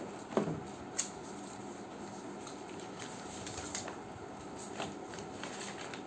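Packing materials and paper manuals being handled in a cardboard box: a soft thump about half a second in and a sharp click a moment later, then scattered light rustling and crinkling of paper.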